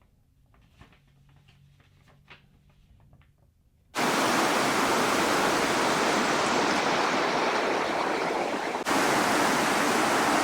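A few faint scattered ticks, then about four seconds in the rushing water of a fast river starts abruptly and runs on as a steady roar of noise, briefly cutting out and resuming about nine seconds in.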